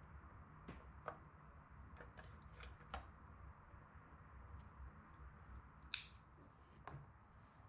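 Quiet, scattered clicks and taps of kitchen tongs as a cooked waffle is lifted from a waffle maker and set down on a plate, the sharpest click about six seconds in, over a faint low hum.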